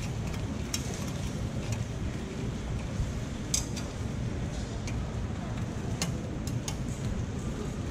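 Metal takoyaki picks clicking against a takoyaki pan as the balls are turned and lifted out, several sharp clicks over a steady low rumble.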